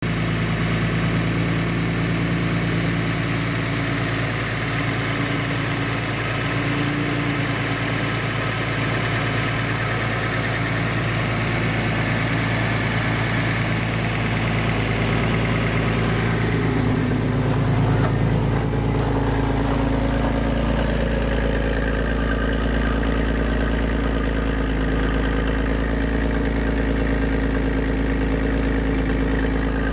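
Nissan straight-six engine idling steadily. It is heard first over the open engine bay, with a hissy upper layer, then from about halfway at the large tailpipe, where the exhaust note is deeper and smoother.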